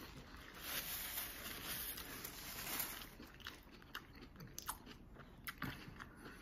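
A mouthful of crispy fish taco being chewed, the fried batter crunching, strongest in the first half, then a few sharp mouth clicks as the chewing slows.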